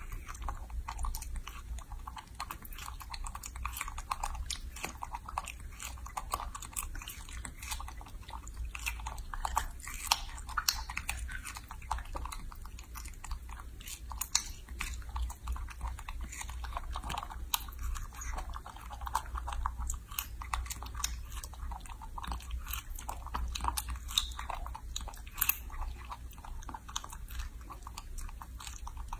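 Baby macaque biting and chewing fresh strawberries: a steady, unbroken run of small quick clicks and smacks, over a steady low hum.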